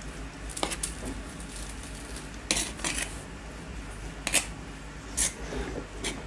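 Spoon scraping and clinking against enamel pots and bowls as batter is scooped out, with a handful of sharp clinks and knocks spread through the stretch.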